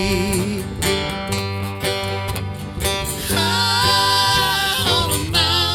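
Country band playing a slow song: guitar and bass with a long wavering held note in the middle, between sung lines.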